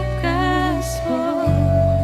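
Slow worship music: a singing voice with vibrato over sustained low chords, the chord changing about a second in, then one long held note.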